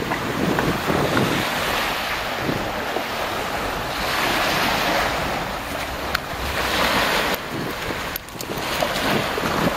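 Small waves breaking and washing up a shell-and-gravel beach, the wash swelling and fading twice, with wind buffeting the microphone.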